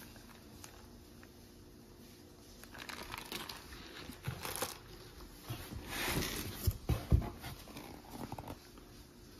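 Plastic zip-top bags of fittings crinkling and rustling as they are handled, with cardboard packaging shifting and a few soft knocks about two-thirds of the way through. The first few seconds are nearly quiet.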